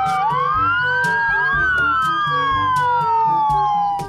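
Several ambulance sirens wailing at once, their rising and falling pitches overlapping, over background music with a steady beat. The sirens cut off just before the end.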